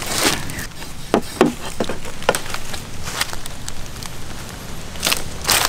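Large knife cutting up an eagle ray, chopping through flesh and cartilage: a series of irregular sharp cracks and chops.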